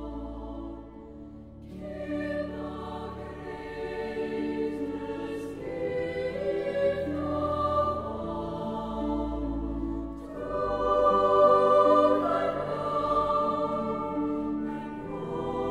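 Background music: a choir singing long held chords over a low bass, swelling louder about two-thirds of the way through.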